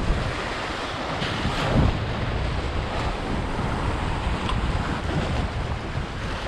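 Wind buffeting the microphone with a low, steady rumble, over surf washing in.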